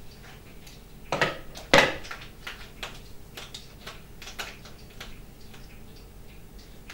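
Teaspoon knocking against a mixing bowl: two sharper clinks a little over a second in, then a run of faint light ticks.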